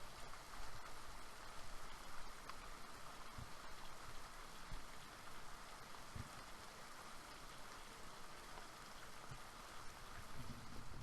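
Steady rainfall, an even hiss with a few single drops ticking.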